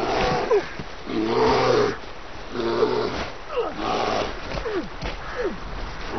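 Brown bear growling and roaring in several short bursts, some of them falling sharply in pitch.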